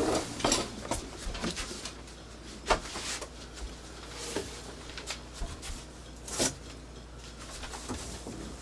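A large cardboard package being handled and opened by hand: scattered rustles and small knocks, with two sharper knocks about three seconds and six and a half seconds in.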